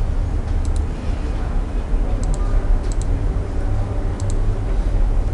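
A few sharp clicks from a computer keyboard and mouse, several in quick pairs, over a steady low hum.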